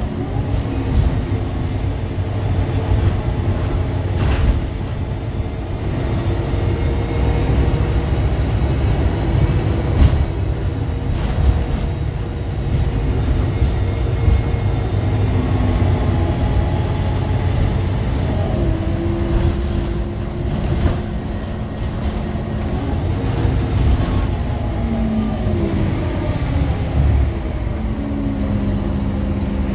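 Scania K310UA articulated bus heard from inside while driving: diesel engine drone over road rumble, its pitch stepping up and down several times as the ZF Ecomat automatic gearbox shifts and the bus speeds up and slows.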